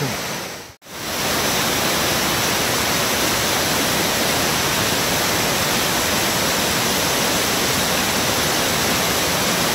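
Running water rushing steadily, an even, unbroken roar with no gusts. It drops out briefly to silence about a second in, then carries on unchanged.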